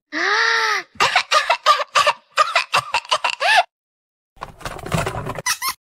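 A woman's voice doing a baby impression: a drawn-out rising-and-falling cry, then a quick run of short, choppy, clucking babble, and after a brief pause a rougher, noisier burst near the end.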